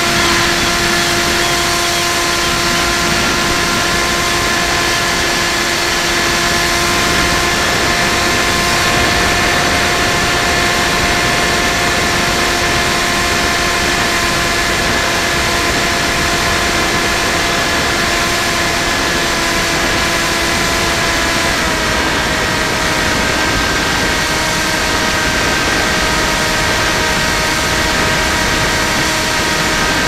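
Electric motor and propeller of an FPV Raptor model plane in flight, heard from the onboard camera: a steady whine under a rush of air noise. The pitch drops a little about two-thirds of the way through, as the throttle eases.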